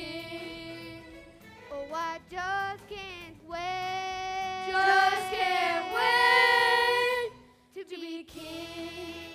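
Children's chorus singing a stage-musical number, building to loud long held notes that cut off abruptly about seven seconds in; quieter sung or played notes follow near the end.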